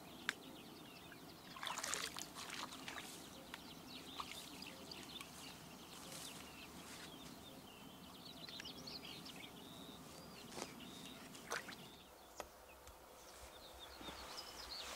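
Faint birdsong: small birds chirping and twittering over a low outdoor hush, with a few short clicks and rustles.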